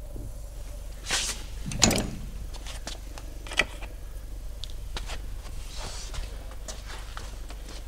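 Handling noise as a plastic bucket is filled with resin and carried: scattered clicks and clunks over a steady low hum, with a louder scrape and knock about two seconds in and a sharp click near the middle.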